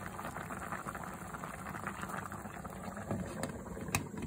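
Pot of soup bubbling at a boil on the stove, with a sharp clink about four seconds in as a glass pot lid is set down on the pot.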